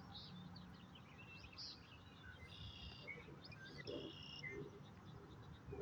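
Faint bird calls: many scattered short chirps, with a couple of brief held notes about halfway through.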